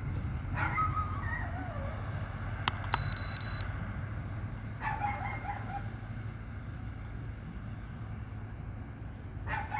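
A rooster crowing twice, about half a second in and again about five seconds in, each call gliding down in pitch, over a steady low rumble.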